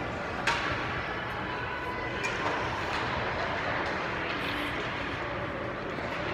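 Steady background noise of an ice-hockey arena heard from the stands, with one sharp knock about half a second in and a fainter one about two seconds later.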